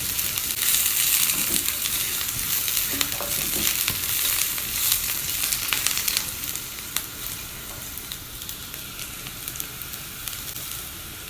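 Chopped onion sizzling in olive oil in a frying pan while being stirred with a utensil, with scattered clicks from the stirring. The sizzle is louder for the first six seconds, then quieter.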